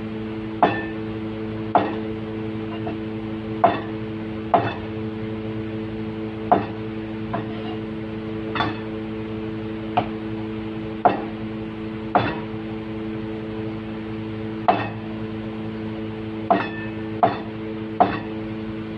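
Cleaver chopping down through firm tofu onto a plastic cutting board: about a dozen sharp knocks, irregularly spaced a second or two apart. A steady low hum runs underneath.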